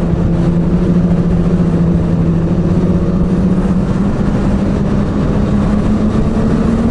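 Ski-Doo snowmobile engine running under way, its pitch climbing slowly and steadily as the sled gathers speed, over a constant rushing noise.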